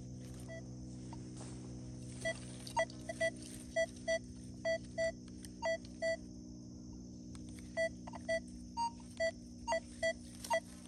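Nokta Legend metal detector beeping on a target as its coil is swept back and forth: about twenty short beeps, mostly in pairs, one pair per pass over the spot, with a pause midway. A steady low hum sounds underneath.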